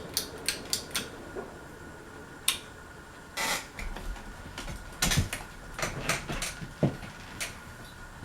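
Ceiling fan with a faint steady motor hum, under a string of irregular sharp clicks and knocks as the fan is being switched over to reverse. A low rumble comes in about four seconds in.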